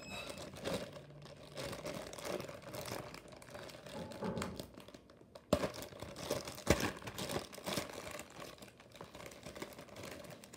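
Plastic poly mailer bag crinkling and crackling irregularly as it is opened and handled, with two sharper snaps about halfway through.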